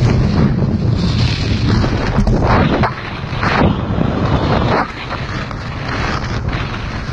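Heavy wind buffeting the microphone while moving fast down a snow slope, with repeated hissing scrapes of snow skates carving packed snow. The rumble eases about five seconds in.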